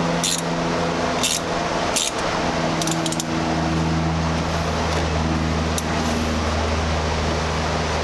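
Several sharp metal clicks from pliers and a wrench working on a car battery terminal in the first three seconds, over a steady mechanical hum and hiss whose low hum gets stronger about three seconds in.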